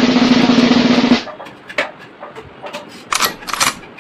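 Loud drum music with a steady drum roll, cutting off abruptly about a second in. Then quiet room sound with a few light clicks and two short noisy bursts near the end.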